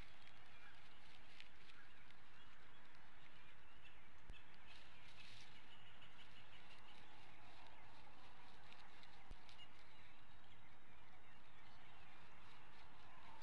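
Steady outdoor background hiss from the nest camera's microphone, with faint, scattered high bird chirps.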